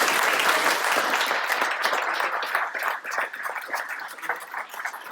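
Audience applauding, a thick burst of clapping that thins out into scattered separate claps toward the end.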